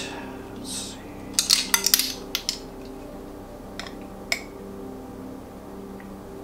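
Light clinks and clicks of kitchen utensils being handled: a quick cluster between about one and a half and two and a half seconds in, then two single clinks around four seconds.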